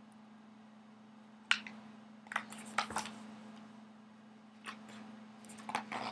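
A hardcover picture book being handled and lowered: a scattering of light clicks and knocks with soft rustling, a few close together near the middle, over a steady low hum.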